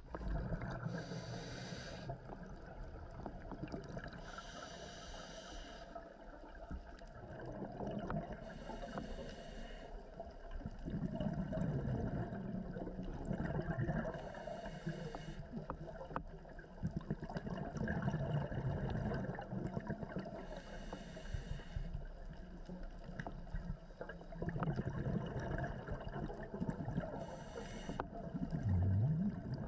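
A scuba diver breathing through a regulator underwater. A hiss on each inhalation comes about every five seconds, six times, and the exhaled bubbles rumble and gurgle in between.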